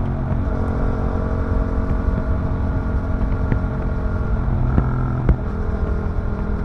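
Yamaha MT-07's 689 cc parallel-twin engine running through an Akrapovic racing exhaust, holding fairly steady revs with small shifts in pitch, with wind noise on the microphone.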